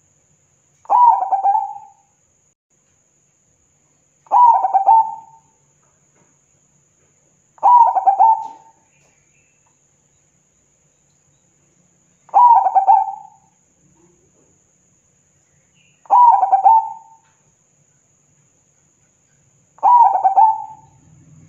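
Zebra dove (perkutut) cooing: six short phrases, each about a second long and made of quick staccato notes, spaced three to four seconds apart.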